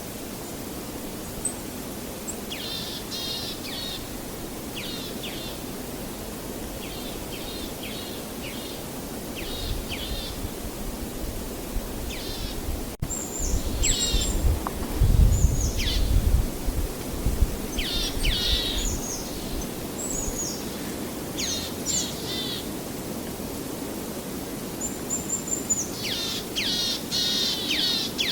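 Small birds chirping and calling again and again, many calls sweeping quickly downward, over a steady outdoor hiss. About halfway through, a low rumble swells for a few seconds and is the loudest sound.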